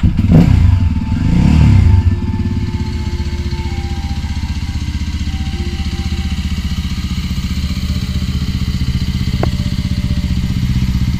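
Kawasaki KLX250/D-Tracker single-cylinder engine, big-bored to 330cc, just started: it is revved briefly twice in the first two seconds, then settles into a steady, evenly pulsing idle.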